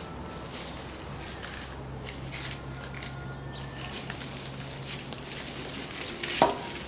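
A bag of dry tinder being opened and rummaged through: rustling and crinkling with scattered small clicks, and one sharp click near the end.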